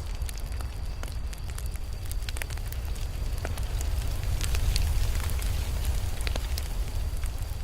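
Campfire burning, wood crackling and popping in irregular sharp snaps over a low steady rumble, swelling a little about halfway through.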